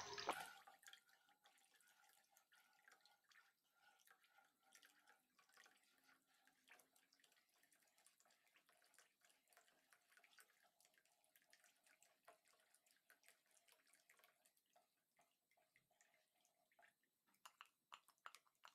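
Near silence, with faint soft clicks and drips from a wooden spoon stirring a large pan of milk while flour batter is poured in. A few louder clicks come near the end.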